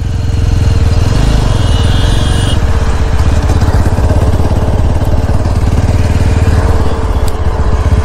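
Yezdi Scrambler's single-cylinder engine running as the motorcycle rides along the road, its exhaust giving a steady, fast pulsing rumble.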